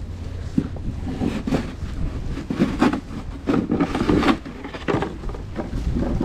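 Footsteps crunching in fresh snow at a walking pace, about two steps a second, over a steady low rumble of wind on the microphone.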